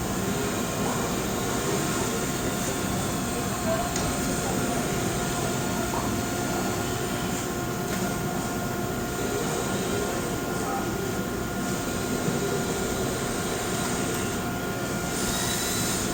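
Steady droning background noise with a few constant hum tones, as from machinery or ventilation running, with no single event standing out.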